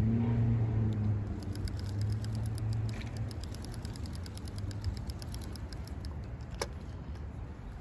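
Spinning reel being cranked to retrieve a small lure, its mechanism ticking rapidly for a few seconds, with one sharp click later. Under it, a low steady hum fades out over the first few seconds.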